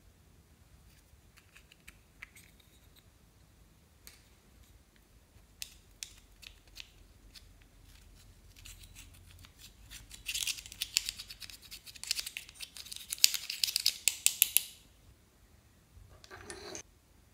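Pressed eyeshadow being scraped and crumbled out of a plastic compact with a thin tool: a dense run of quick, gritty scratching strokes lasting about four seconds past the middle, after scattered light clicks of the compact being handled. A brief rustle near the end.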